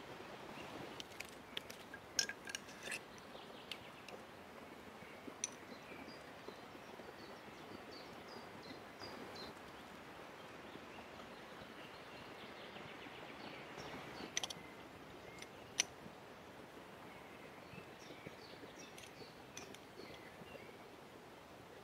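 Light clinks of a small metal spoon against glass spice jars while spices are sprinkled: a quick cluster about two seconds in, then single clinks now and then. Behind them is a faint outdoor hush with a few distant bird chirps.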